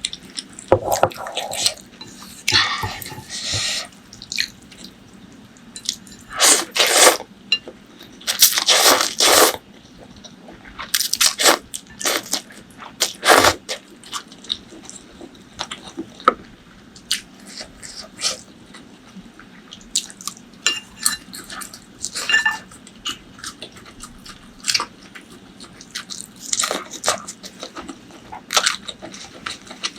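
Close-miked eating: irregular chewing, mouth smacks and crunchy bites, with a few louder bursts lasting about a second.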